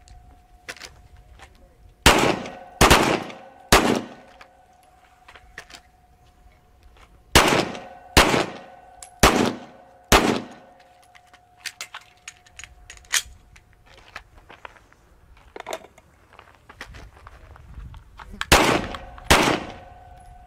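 Handgun shots: about nine sharp reports in small groups, three about a second apart around two to four seconds in, four more between about seven and ten seconds, and two near the end, each with a short echo tail. Fainter pops and clicks fall between them.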